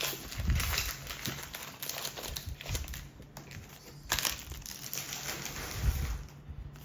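Foil Pokémon booster pack wrapper crinkling as it is handled and opened, with a louder crackle about four seconds in.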